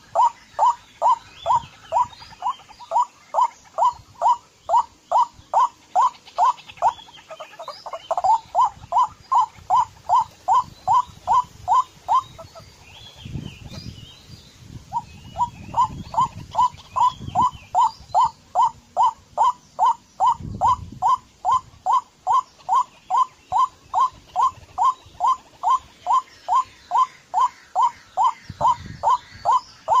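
A bird calling: a short falling note repeated very evenly about twice a second, breaking off for about three seconds near the middle and then starting again.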